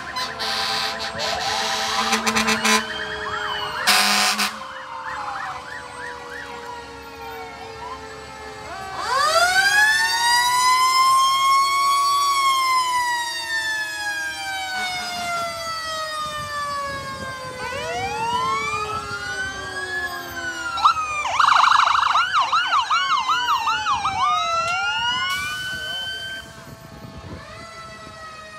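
Several fire trucks' sirens sounding together, overlapping. One wails up to a peak about twelve seconds in and then slowly falls, and a fast yelping siren joins near the end. Loud horn blasts come in the first few seconds, around nine seconds, and twice more near the end.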